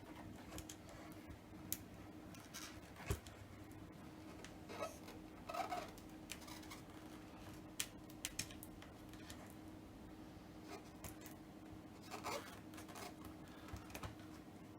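Faint scratching, rubbing and scattered small clicks of fingers and a tool picking at the snapped end of an iPhone 6s battery's adhesive pull strip, with a steady low hum underneath.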